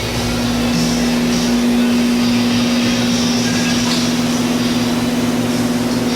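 Air compressor running with a steady hum while a paint spray gun hisses in irregular bursts as the trigger is pulled and released.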